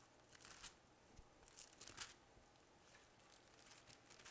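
Faint rustling of Bible pages being turned while searching for a passage: a few short, soft swishes.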